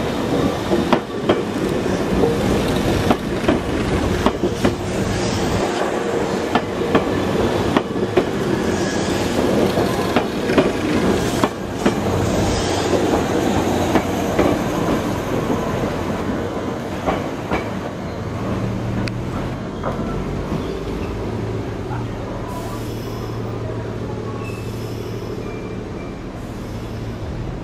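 Meitetsu red electric commuter train running along the platform: wheels clacking over the rail joints with some wheel squeal. A steady low hum takes over in the second half.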